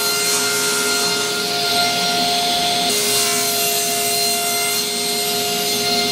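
An electric power tool runs at a steady speed, working wood. It makes a constant motor whine over a rasping noise.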